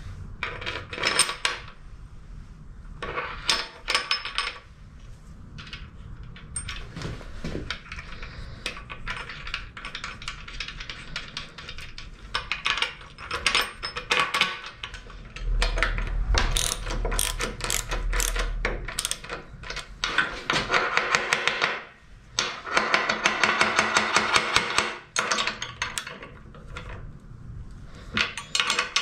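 Hand assembly on a steel locomotive frame: metal parts and bolts clinking and knocking as horn guides are fitted, with stretches of a socket ratchet clicking rapidly as the bolts are run in and tightened.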